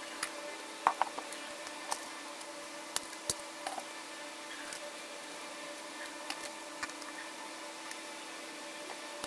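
Unboxing handling sounds: scattered light clicks, taps and crinkles as plastic wrap, a bagged accessory, the cardboard box and the 360 camera body are handled, over a faint steady hum.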